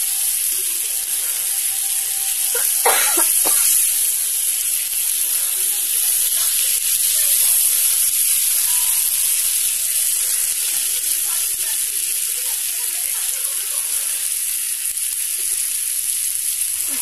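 Chicken pieces sizzling steadily in hot oil in a pan, stirred with a flat spatula that knocks and scrapes against the pan, most sharply about three seconds in.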